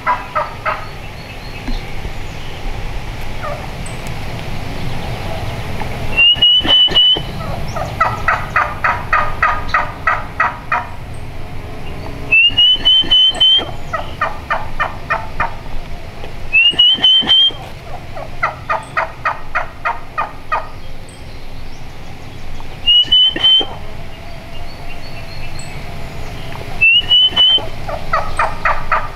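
Wild turkey hen giving her assembly call: repeated runs of yelps, about four a second and a dozen or so to a run, each run lasting two to three seconds, with pauses between. Before each run comes a short rising whistled note.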